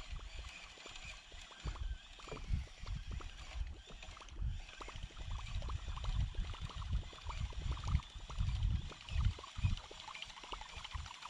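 Water lapping and sloshing against a kayak hull, with scattered small ticks and irregular low rumbles.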